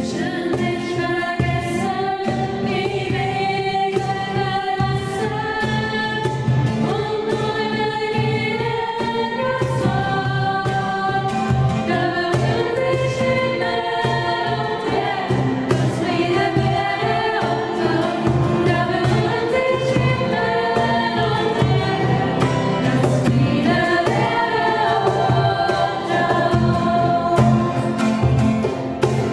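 A song performed by a small church band: young voices singing a melody to keyboard, guitar and bass, with a steady hand-drummed beat on a cajon.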